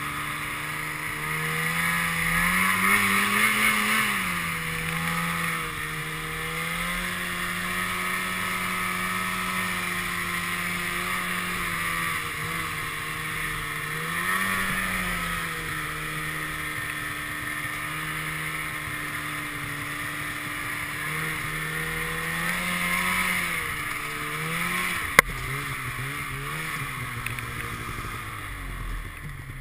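Polaris snowmobile engine heard from on board, running under throttle with its pitch rising and falling several times as the rider speeds up and eases off, over a steady hiss. A single sharp click about 25 seconds in, and the revs drop away at the very end.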